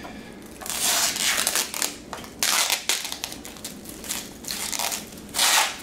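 Plastic shrink wrap crinkling and tearing as it is peeled off the meat loaf pan parts, in several rustling bursts. The longest comes about a second in and the loudest near the end.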